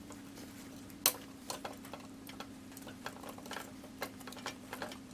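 Metal clicks and knocks as a small 6.5 hp engine is lowered and shifted onto a log splitter's steel mounting plate: one sharp knock about a second in, then a scattered run of lighter ticks, over a steady low hum.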